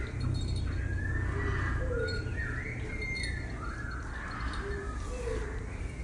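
Birds calling: short low notes repeating every second or two, with higher gliding calls between them, over a steady low rumble.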